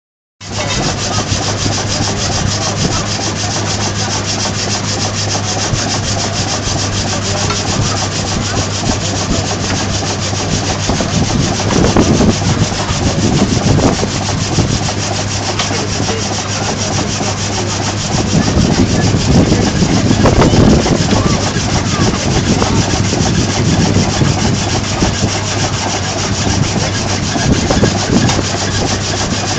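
Old steam-driven mobile sawmill running, its saw cutting through a log with a steady rasping and a constant low hum from the drive, growing a little louder twice midway.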